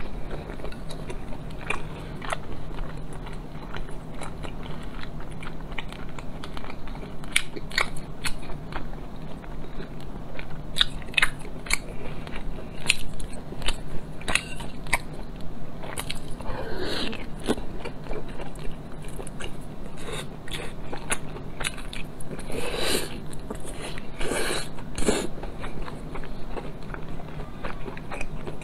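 Close-miked chewing and biting of soft braised pork belly: a run of wet mouth clicks and smacks, with a few longer, louder wet mouth sounds in the second half.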